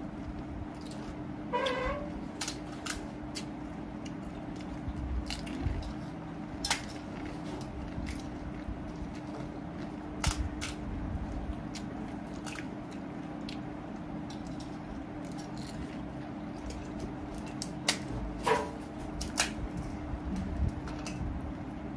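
Pani puri being eaten at speed: crisp hollow puri shells cracked open with the fingers and filled from small steel bowls, with scattered clicks and crunches and wet squishy chewing, over a steady low hum.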